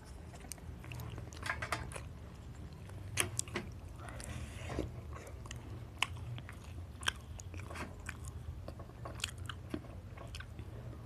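Close-up chewing and biting of food, with irregular wet mouth clicks and a few crunches. A low steady hum runs underneath.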